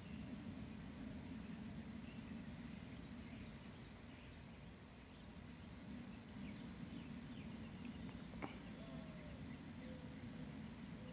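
Insect chirping: a faint, steady train of short high-pitched pulses, evenly spaced, over a low rumble. One sharp click comes about eight and a half seconds in.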